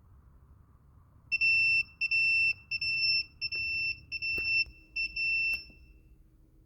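Gas-Fusion 400 electrofusion welding machine beeping: a series of short beeps, each about half a second, at one steady high pitch.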